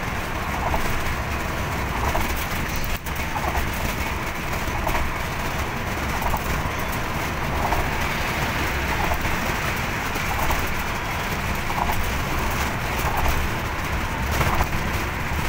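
Steady road and wind noise of a vehicle travelling at speed on an elevated highway, with a low rumble and a short higher tone repeating about every second and a half.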